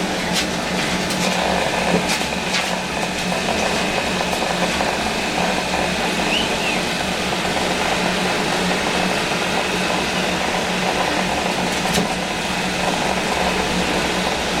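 A steady mechanical hum with a low drone, with a few faint clicks.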